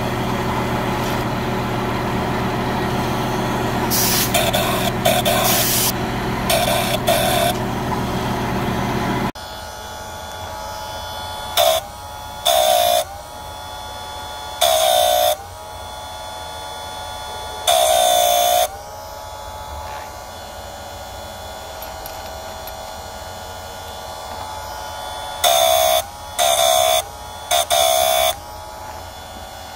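Electric chainsaw-chain grinder's motor running steadily, its abrasive wheel dipped onto the chain's cutter teeth in short grinding strokes, each a second or less. There are a few strokes in the first third. Then the sound changes and goes quieter, and about seven more strokes follow, several close together near the end. The motor's pitch dips briefly as each stroke loads it.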